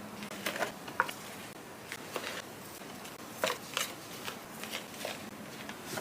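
Jewelry gift-box packaging being handled: scattered light clicks, taps and rustles, with the sharpest about a second in and a cluster around three and a half to four seconds in.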